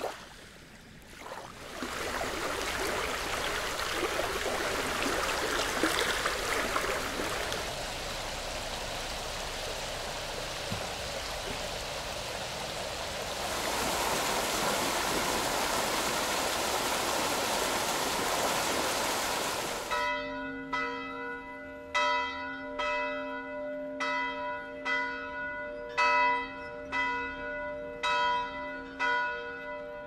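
Small waves lapping on a sandy shore, then a steady rush of water, including jets pouring from a row of fountain pipes into a pool. About twenty seconds in, church bells start ringing, with strikes about once a second.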